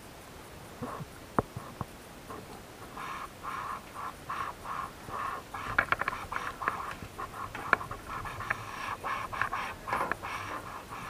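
Water sloshing and slapping against a plastic sit-on-top kayak hull in short, quick splashes, with a few sharp knocks against the boat.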